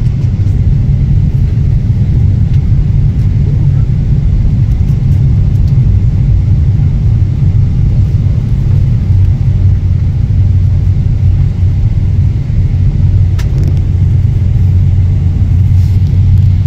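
Steady low rumble inside the cabin of a Boeing 777 airliner in flight on descent: the continuous engine and airflow noise heard from a window seat.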